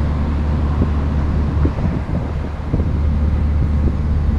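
Steady low drone of a diesel engine running at idle, with wind rumbling on the microphone and a few faint knocks.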